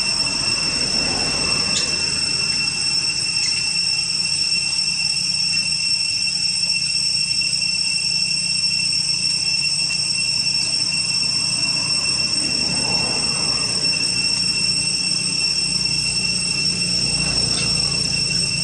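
Steady, unbroken high-pitched drone of insects, cicadas or crickets, in the forest, with an occasional faint click.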